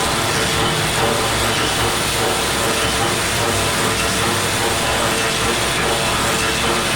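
Workshop machinery running steadily: a dense, even mechanical din with a few faint steady tones through it.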